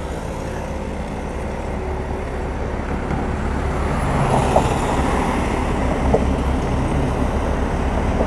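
Steady rumble of a moving open-top tour bus and the surrounding road traffic, heard from the open upper deck, growing a little louder about halfway through.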